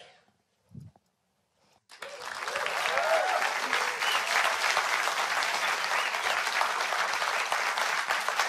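An audience applauding, with a few cheers. It starts abruptly about two seconds in, after near silence.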